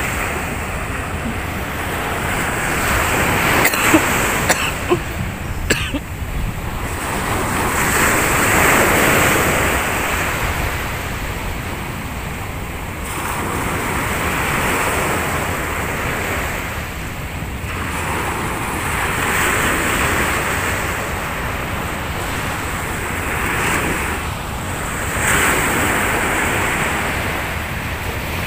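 Sea surf breaking on a sandy beach, the wash swelling and fading about every five or six seconds, with wind rumbling on the microphone. A few short sharp clicks come about four to six seconds in.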